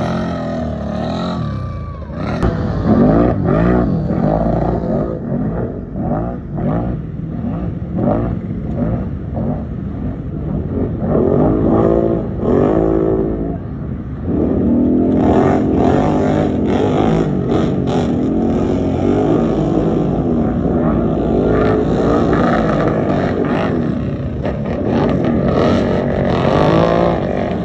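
Off-road racing vehicle engines running hard, their pitch rising and falling repeatedly as the throttle opens and closes.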